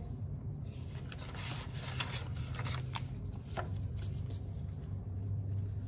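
Paper banknotes and a plastic zippered binder pouch being handled: soft rustling with a few small clicks, over a low steady hum.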